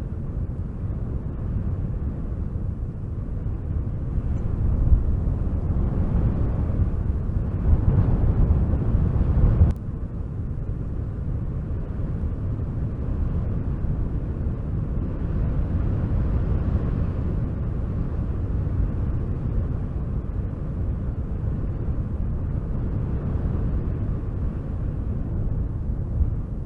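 Wind blowing hard in gusts, a deep rumbling rush that swells for a few seconds and then drops suddenly about ten seconds in.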